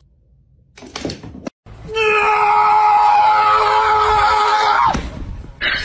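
A long, loud, high-pitched scream held steady for about three seconds, then dropping off.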